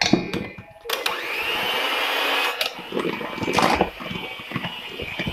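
Handheld electric mixer switching on about a second in after a few knocks, its motor whine rising as it speeds up, then running with the beaters knocking and scraping in a stainless steel bowl as they mix flour into a thick butter, sugar and egg batter.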